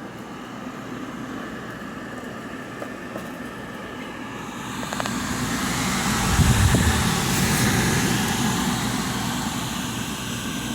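TCL portable air conditioner running with its fan and compressor on, a steady mechanical noise with air rushing. About halfway through the rush of air and a low rumble swell up, then slowly ease off.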